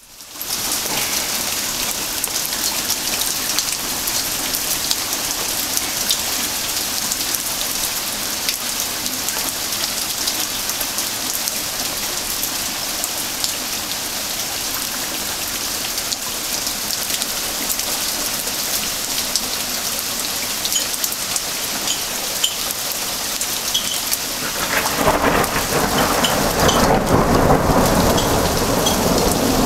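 Heavy downpour hissing steadily onto a flooded garden path. About 25 seconds in, a long low rumble of thunder rolls in and is still going at the end.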